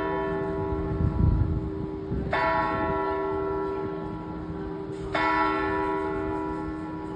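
The Zytglogge clock tower's bell striking the hour in slow single strokes, about one every three seconds. Each stroke is followed by a long, fading ring. Twice a new stroke comes while the last is still ringing.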